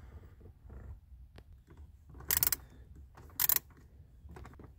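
Hand screwdriver driving in and tightening small trim screws under a car's dash radio: faint light clicks, and two short scraping bursts about two and three and a half seconds in.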